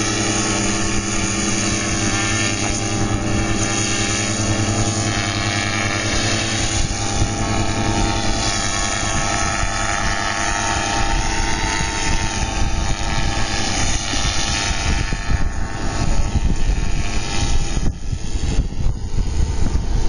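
Paramotor (powered paraglider) engine and propeller running at takeoff power, a steady droning tone. It fades in the last few seconds as the paramotor climbs away.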